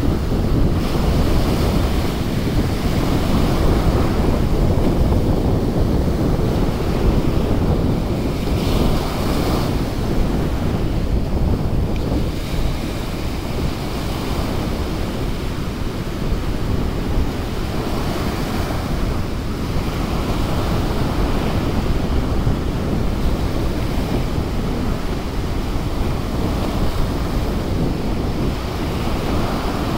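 Gulf of Mexico surf breaking and washing up a sandy beach in rolling swells, with wind buffeting the microphone.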